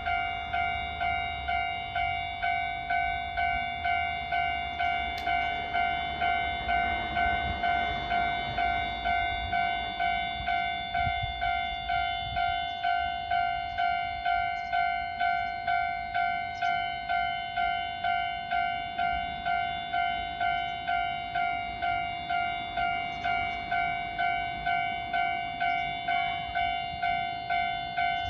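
Japanese railway level-crossing warning bell ringing in a steady rhythm, about three strikes every two seconds, each strike fading before the next. A low rumble swells and fades under it in the first half.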